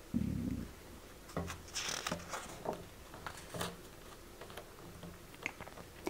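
Faint handling of a picture book as a page is turned by hand: a soft low bump at the start, then a few light paper rustles and taps, with a small click near the end.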